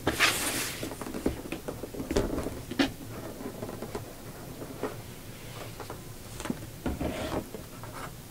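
A large cardboard box being handled and its lid lifted off and set down: a short scrape of cardboard at the start, then scattered light knocks, taps and rustles.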